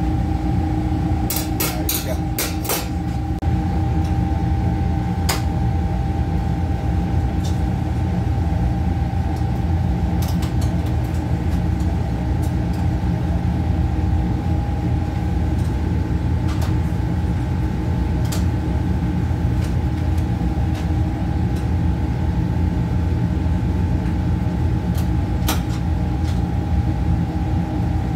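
Steady hum of commercial kitchen machinery, with a cluster of sharp clicks and light metal taps about two seconds in and a few single clicks later.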